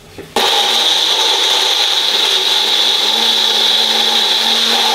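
Small personal blender, its jar held pressed onto the motor base, grinding chopped mango pieces into pulp. The motor starts suddenly about half a second in and then runs at a steady pitch with a high whine.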